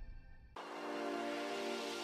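Background music: one track fades out and another begins about half a second in, with held sustained tones.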